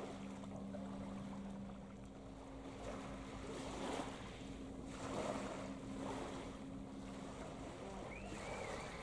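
Harbour ambience: a steady low drone of ship or port machinery across the water, with wind on the microphone. A bird calls a few times near the end.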